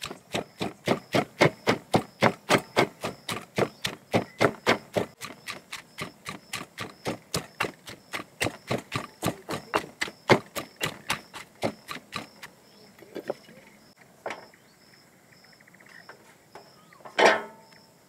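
Stone pestle pounding wild flowers in a stone mortar: regular strikes, about four a second, for roughly twelve seconds, then a few scattered knocks and one louder knock near the end.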